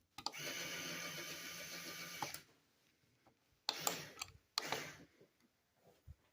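Small electric motor turning the plastic gears of a Lego Technic model: a steady whirring for about two seconds, then two short bursts.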